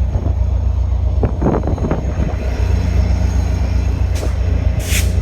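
Caltrain passenger train passing close by: a steady heavy low engine rumble, with a burst of wheel clatter about a second in and a short sharp hiss near the end.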